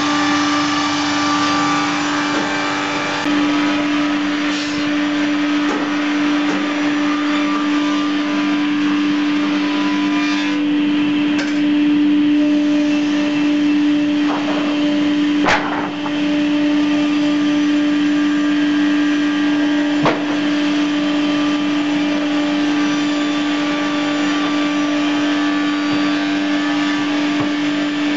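FBST-220 milling-and-sawing line running: electric-motor-driven cutters and sawdust extraction fans giving a loud, steady machine hum. A couple of sharp knocks cut through about halfway through.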